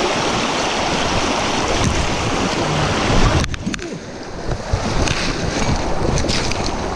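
Shallow river rushing over a gravel riffle, with wind and handling buffeting the action camera's microphone. The rush dips briefly about halfway through, and a few sharp clicks and knocks come near the end.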